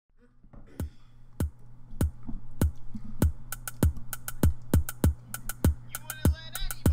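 Instrumental backing track fading in on a drum-machine beat: a deep kick about every 0.6 s over a steady low tone, quicker clicking hits joining about three and a half seconds in, and a warbling high line coming in near the end.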